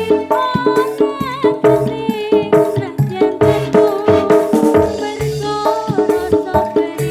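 Live band music over a sound system: held keyboard-like notes under a lead melody that bends in pitch, with frequent drum hits.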